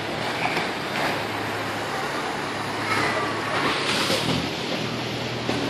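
Steady low drone of boat engines under an even wash of wind noise on the microphone.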